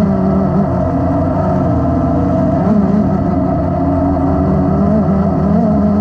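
DJI Inspire 1 quadcopter's four motors and propellers droning, heard from a camera mounted on the drone itself. The pitch wavers up and down continuously as the motors change speed.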